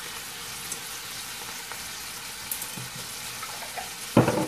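Ground beef frying in a skillet: a steady sizzle, with one brief louder sound near the end.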